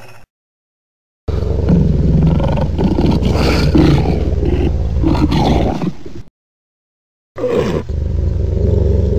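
Designed creature sound effects for a Dimetrodon. First comes a growling roar of about five seconds over a deep rumble. After a pause of about a second, a second call opens with a falling cry and settles into a low, steady growl.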